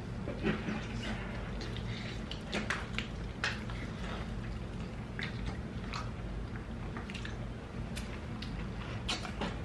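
People biting and chewing sauced chicken wings close to the microphone: scattered short, wet crunches and smacks at irregular intervals over a steady low hum.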